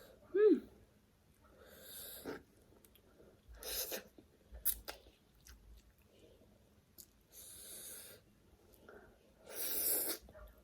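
Close-up eating sounds of a person slurping 2x-spicy Korean noodles: four short hissy slurps a few seconds apart, with soft chewing between them. A brief hummed "mm" comes just after the start.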